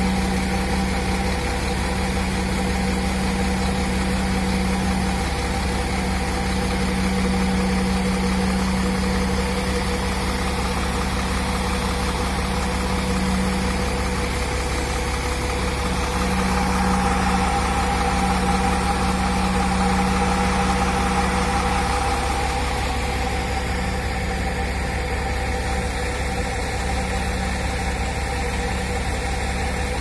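Truck-mounted concrete pump's diesel engine running steadily close by, with a humming tone over the rumble that fades about two-thirds of the way through.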